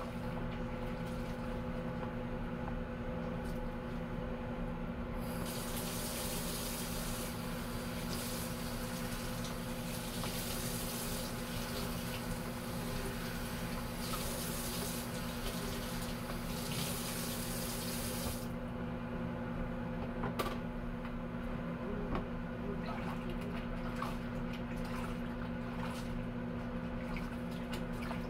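Kitchen faucet running into a sink while a plastic cutting board is rinsed under it, from about five seconds in until about eighteen seconds. Either side of that, small splashes and clinks come from dishes being washed by hand in soapy water, over a steady low hum.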